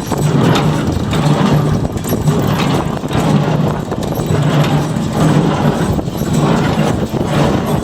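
John Deere 336 square baler running, its mechanism clattering in a steady rhythm of knocks a little more than once a second, over the steady drone of the tractor driving it.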